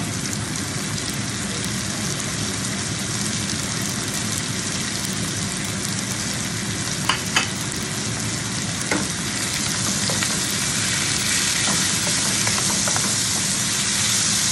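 Onion, garlic and diced tomato sizzling steadily in hot oil in a frying pan, a little louder from about ten seconds in. A few light knocks come about halfway through, and a spatula stirs the pan near the end.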